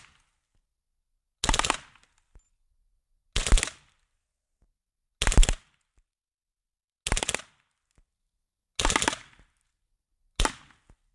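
Action Army AAP01 gas blowback airsoft pistol firing full-auto, in short bursts of about half a second each, roughly every two seconds, each burst a fast rattle of shots.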